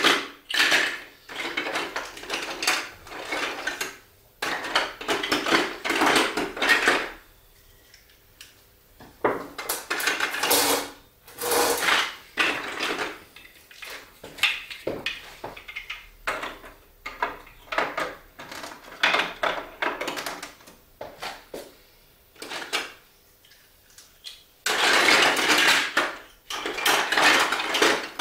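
Marbles rolling and clattering down a plastic Duplo-block marble run, in runs of a second or two broken by sharp clicks and short gaps, with a longer, louder run near the end.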